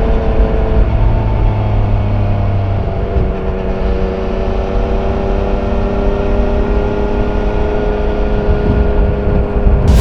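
Yamaha Niken GT's three-cylinder engine, heard from on board through its stock exhaust while riding. The engine note drops about a second in, then holds fairly steady.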